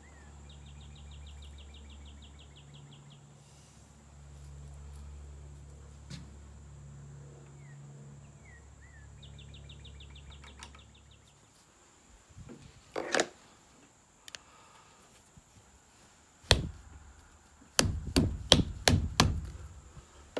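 Knocks from a muzzle-loading flintlock rifle being handled and loaded: a couple of single knocks, then a quick run of about six louder knocks over a second and a half. Before them, insects trill in two short runs over a low steady hum.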